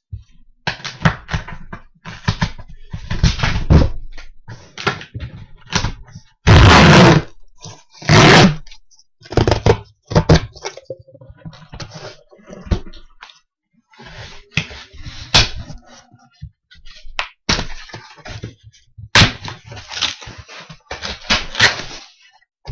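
A cardboard shipping box being torn open by hand: packing tape and cardboard ripped in a series of irregular rips, cracks and knocks. The two longest and loudest tears come about a third of the way through.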